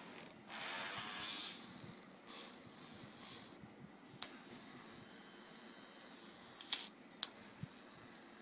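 Homemade cutter on a small 12 V DC motor's shaft rasping against a thin aluminium strip: a loud scraping burst about half a second in lasting a second and a half, then quieter whirring and scraping. A few sharp metallic clicks near the middle and end as the strip is handled.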